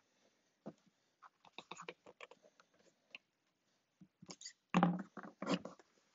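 Twisted paper fibre rush cord scraping and rustling as it is pulled by hand through the tightly woven seat and drawn taut: a run of short, irregular scratchy rustles, loudest about five seconds in.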